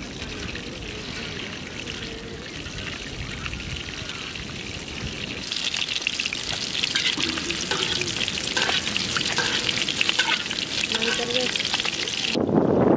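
Whole masala-coated sea fish deep-frying in hot oil in an iron kadai, the oil sizzling and crackling steadily. It grows louder about halfway through and cuts off shortly before the end.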